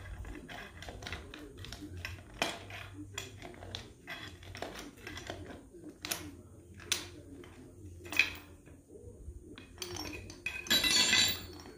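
Steel chain clinking and rattling against metal as it is worked down into a floor anchor pot: scattered sharp clinks, then a longer, louder rattle near the end.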